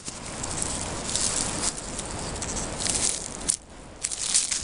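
Dry grass rustling and crackling as a Samoyed puppy paws and moves about in it, in irregular bursts, dropping off briefly about three and a half seconds in.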